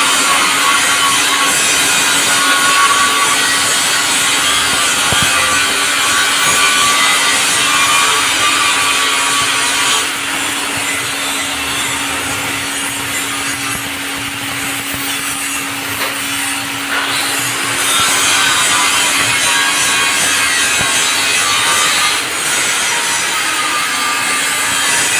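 Stick (SMAW) welding arc crackling and hissing steadily as a root pass is run on a pipe joint, over a steady low hum. The crackle softens for a stretch in the middle, then comes back up.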